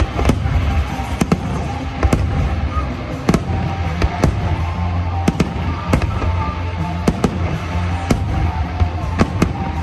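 Aerial fireworks exploding: a run of sharp bangs at irregular intervals, about one or two a second, over a steady low rumble, with music playing along.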